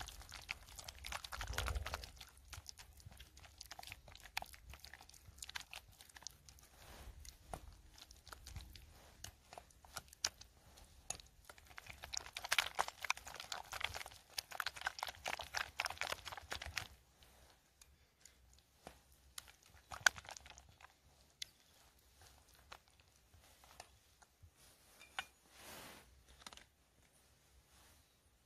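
A silicone spatula stirring and beating a thick mascarpone and egg-yolk cream in a stainless steel bowl: quick wet squelches and scrapes, busiest around the middle, then thinning to a few scattered light taps.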